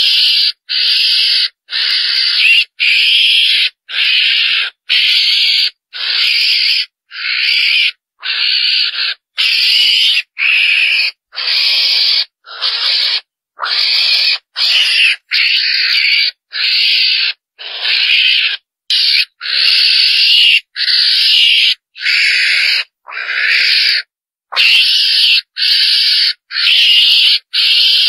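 Mongoose (chồn đèn) calls played as a hunting lure: short, noisy, high calls repeated about once a second, each under a second long, with silence in between.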